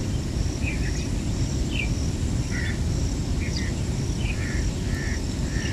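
Outdoor rural ambience: a steady low rumble with scattered short bird chirps and a faint high insect buzz pulsing about twice a second.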